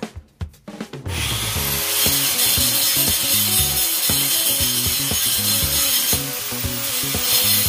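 Handheld angle grinder spinning up about a second in and then grinding steel on the deer stand's seat frame, a steady harsh grinding noise, over background music with a beat.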